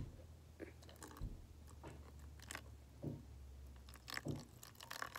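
A thin stream of water poured slowly from a plastic container onto instant snow powder in a plastic tub, giving irregular soft crackles and splats about every half second.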